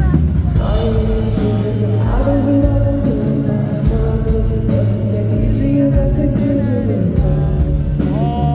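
Loud live band music at a concert, with a heavy low end and long held notes that slowly bend in pitch, and some singing.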